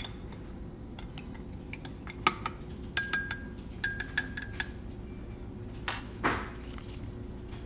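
A stirring rod clinking against a glass beaker while the troche base is stirred: a run of sharp ringing clinks about three to four and a half seconds in, with lighter taps around them, then a single dull knock near the end.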